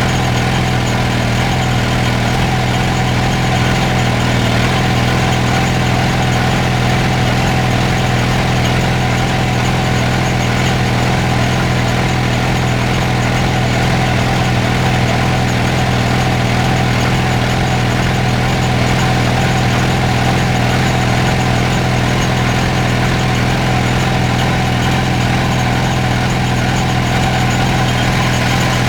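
Engine idling steadily at an unchanging speed, with a constant low hum.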